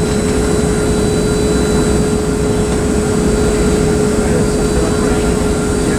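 Steady cabin noise inside a Boeing 757-200 on the ground: a continuous low rumble with a constant hum running through it.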